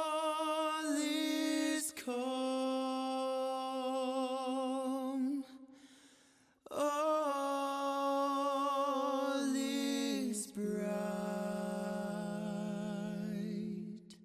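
A cappella vocal music: a voice holding long notes with a wavering vibrato, in three phrases with short breaks about five and ten seconds in, stepping down in pitch at the end of the second phrase.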